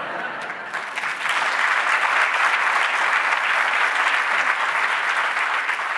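Audience applauding, swelling over the first second and then holding steady.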